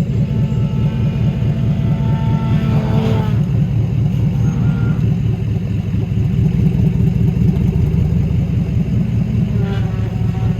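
Off-road vehicle engine running steadily at low revs, a dense, even low rumble, while the 4x4 crawls over a trail obstacle.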